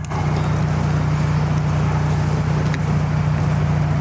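A steady low motor hum with a constant hiss over it.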